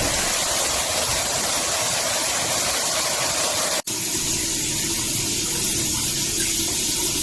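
Water spraying from a rainfall shower head as a steady hiss. There is a brief break about four seconds in.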